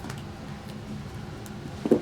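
Room HVAC unit (air conditioner or heater) running with a steady hum. A brief burst of a man's voice comes just before the end.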